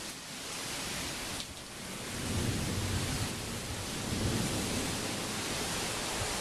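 Heavy wind-driven thunderstorm rain, a steady dense hiss, with strong wind gusting. A deep low rumble joins about two seconds in and lasts a few seconds.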